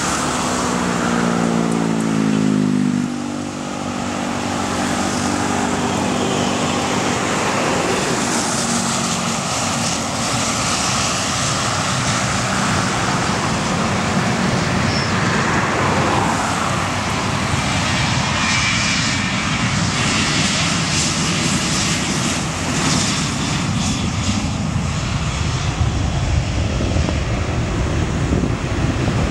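A Boeing 737's twin jet engines at takeoff thrust: a loud, steady rush as the airliner rolls down the runway and climbs away. In the first three seconds a car passes close by, its engine note falling in pitch.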